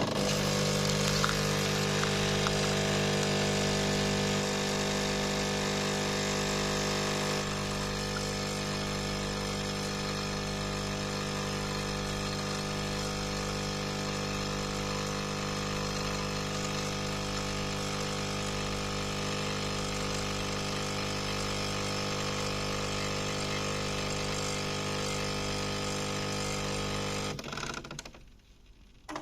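Jura E60 espresso machine running steadily, a continuous buzzing hum with the character of its pump pushing water through the coffee during brewing. It eases slightly in level a few seconds in and stops a couple of seconds before the end.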